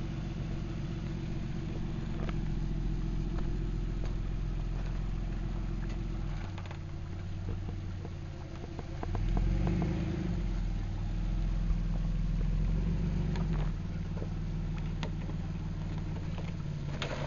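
Off-road 4x4's engine running at low speed while crawling, pulling harder for about five seconds from roughly nine seconds in, with scattered clicks and one sharp knock.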